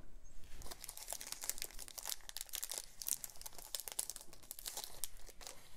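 Thin clear plastic sleeve crinkling as a fountain pen is handled and slid out of it: an irregular run of small crackles and rustles.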